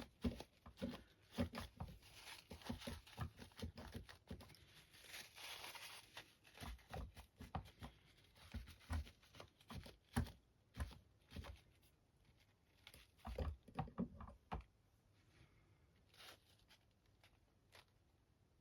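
Kitchen roll being dabbed against a painted 3D-printed model to blot off excess wet paint: faint, irregular soft taps with papery rustling, thinning out after about fifteen seconds.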